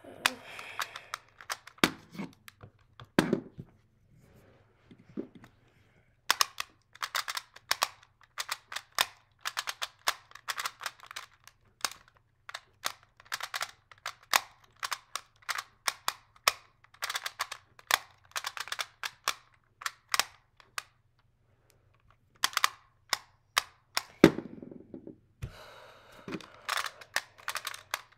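A Rubik's Clock puzzle being turned quickly in the hands: its dials and pins give rapid runs of sharp clicks, sparse at first and then nearly unbroken, with a brief pause and a couple of duller knocks near the end.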